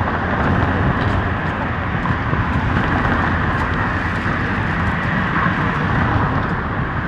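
Steady downtown street noise, mostly passing road traffic, with no distinct events standing out.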